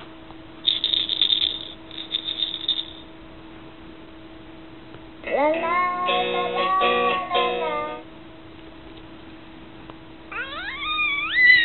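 Electronic baby soundboard playing its recorded clips through a small speaker: a rattle shaking in two short bursts about a second in, then a baby's sing-song voice in the middle, then a baby's rising, wavering squeal near the end. A faint steady hum runs underneath.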